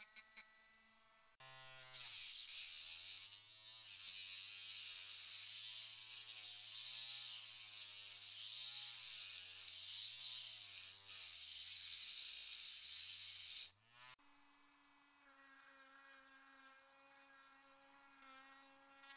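A small handheld electric power tool running. About a second and a half in it comes under load: its pitch drops and wavers, with a loud hiss over it. Near the end the load comes off and it runs free at a higher, steady pitch.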